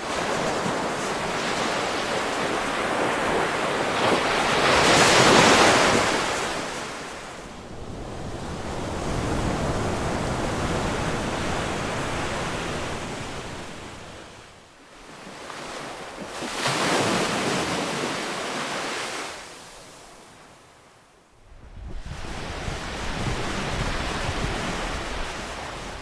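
Ocean surf: waves breaking and washing in a steady hiss that swells and ebbs slowly. The biggest surges come about five seconds in and again around seventeen seconds.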